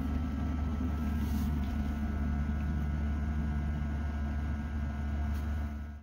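Robinson R44 Raven II main rotor and drivetrain coasting down with the engine shut off, a steady low rumble with a faint whine, while the rotor brake is held on lightly to slow the blades.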